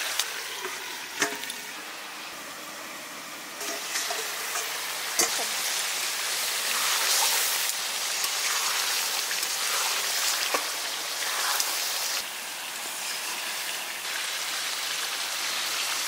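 Duck and potato curry sizzling in a metal karahi over a wood fire as it is stirred with a spatula. The spatula scrapes through the pan and knocks against its side several times.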